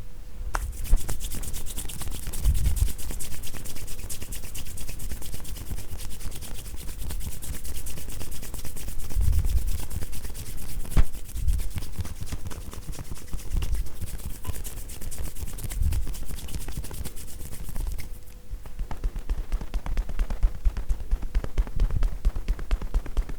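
Hands tapping a fast, steady patter of tapotement (kouda-ho) percussion massage on a person's body, with a rustle like hands rubbing on cloth. About three-quarters of the way through the rustle stops and the taps stand out more clearly.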